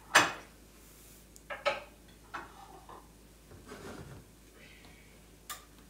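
Kitchen utensils and dishes clanking: a handful of separate knocks and clinks, the loudest just after the start, with a light scrape about two-thirds of the way through.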